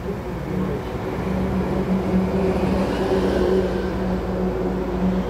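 Honeybees buzzing in a steady, loud hum as a dense cloud of them flies around opened hives.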